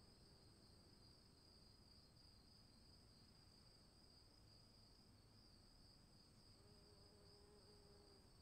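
Very faint insect chorus: steady, high-pitched trilling over a low rumble, with a faint held tone for about a second and a half near the end.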